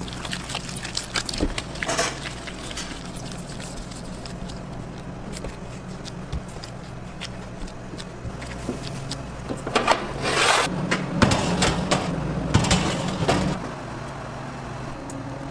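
Dough being handled on a stainless steel worktop and baking tray: scattered light knocks and taps, and a louder scraping stretch about ten seconds in that lasts around three seconds, over a steady low hum.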